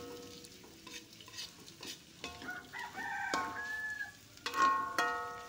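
Metal spatula stirring and scraping tofu in sweet soy sauce around a wok, with light sizzling and small clicks. A rooster crows in the background about two and a half seconds in and again, louder, near the end.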